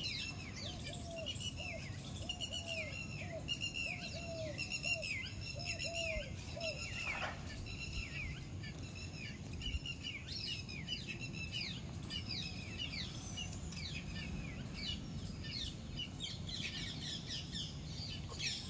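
A chorus of birds chirping, many short downward-sliding calls repeated quickly and overlapping. For the first seven seconds a lower call repeats about twice a second beneath them, over a steady low background noise.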